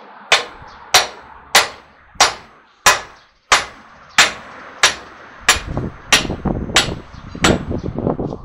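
Kingpin being driven down into a truck's steering knuckle with hammer blows: about a dozen sharp metal strikes, evenly spaced at roughly one and a half a second.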